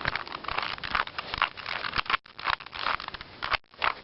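Plastic 2x2x2 Rubik's cube being turned by hand through an algorithm: quick clicking and scraping of the layers rotating, with two brief pauses.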